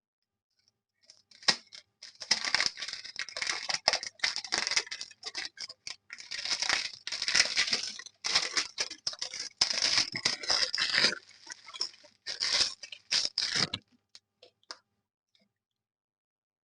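A perfume box's packaging being unwrapped by hand: sustained crinkling and tearing, with quick crackling strokes in bursts for about thirteen seconds, then stopping.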